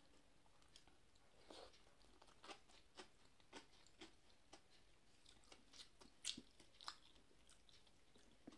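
Faint, scattered clicks and wet smacks of eating rice and dal by hand: chewing, and fingers mashing rice with dal on a plate. The loudest click comes about six seconds in.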